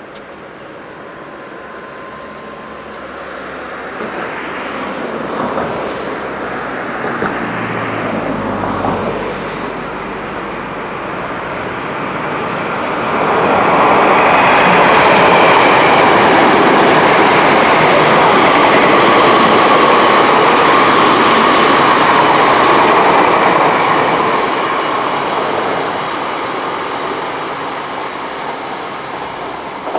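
An electric train running past on the tracks below: the rumble builds from a few seconds in, is loudest for about ten seconds in the middle as the train goes by, then fades.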